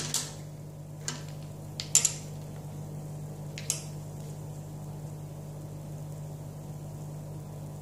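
A few light clicks and taps of make-up items, compacts and brushes, being handled. The sharpest comes about two seconds in, and there is a steady low hum underneath.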